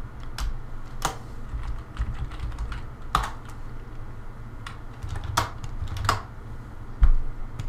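Typing on a computer keyboard: irregular keystrokes, a few of them louder clicks, with a low thump near the end over a steady low hum.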